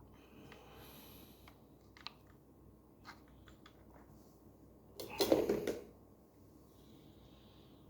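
Small plastic clicks and handling noises as a blade is fitted onto a Daewoo grass and shrub shear, with one louder rattling scrape about five seconds in.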